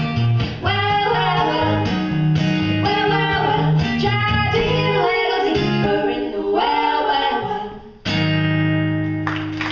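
Female vocal trio singing in harmony to acoustic guitar. The singing breaks off about eight seconds in, a final chord is held, and applause starts just before the end.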